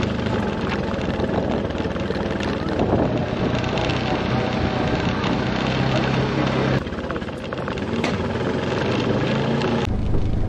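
Off-road vehicle engine running steadily while driving, over a dense rumble of trail and wind noise. The sound changes abruptly about seven seconds in and again near the end.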